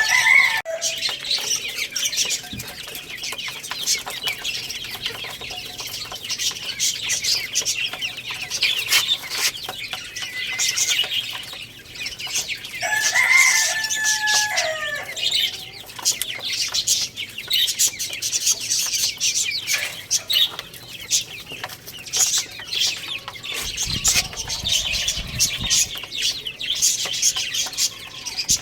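A crowd of baby chicks cheeping continuously in high, overlapping peeps, with scattered clicks and scuffles. About 13 seconds in there is a louder, lower chicken call.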